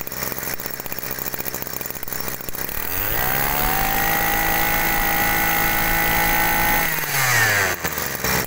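Maruyama brush cutter's small 20cc two-stroke engine idling, then revved up about three seconds in, held at high revs for about four seconds, and let drop back to idle.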